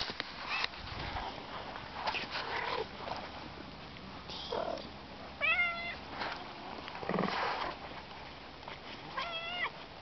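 Domestic cat meowing twice, two short meows about four seconds apart.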